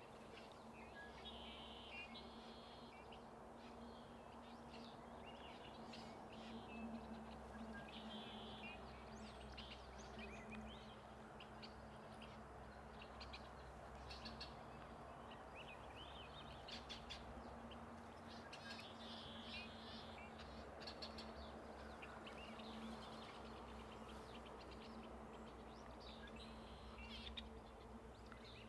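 Red-winged blackbirds calling over and over, a faint racket of short chirps and buzzy calls, over a steady low hum.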